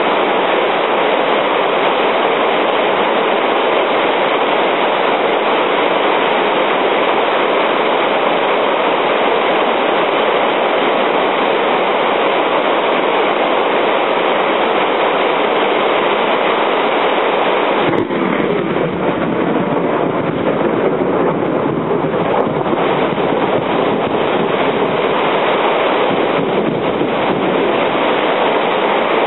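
Heavy downpour of thunderstorm rain: a loud, steady rushing hiss. About eighteen seconds in there is a sharp click, and after it the rush sounds a little deeper.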